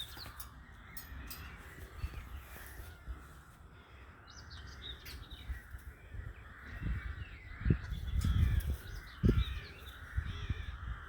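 Outdoor birdsong: crow-like cawing and higher chirping calls. From about seven seconds in, a few seconds of loud low rumbling and thumps cover it.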